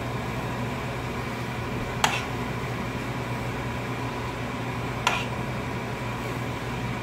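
Steady hum of a kitchen exhaust fan, switched on against smoke from the frying, with two sharp clicks of a spoon against the frying pan, about two seconds in and again about five seconds in.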